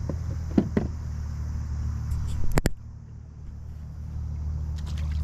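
Knocks and clicks of gear being handled in a kayak, loudest as a sharp double knock about two and a half seconds in, over a low steady rumble.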